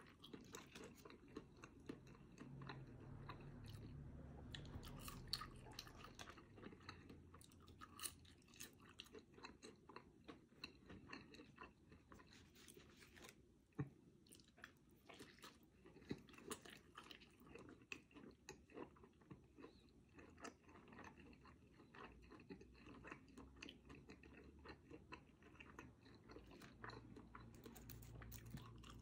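Close-miked chewing of a Wendy's Baconator bacon cheeseburger and french fries, full of small crunches and clicks, with one sharper click about halfway through.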